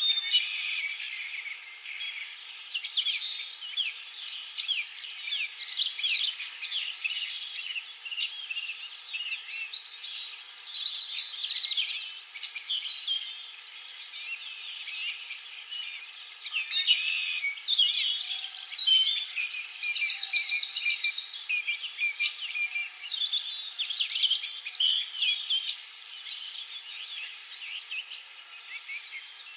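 Many songbirds chirping and singing at once in a dense spring chorus of quick, high, overlapping chirps and trills. A buzzy, rapidly pulsed trill stands out about two-thirds of the way through.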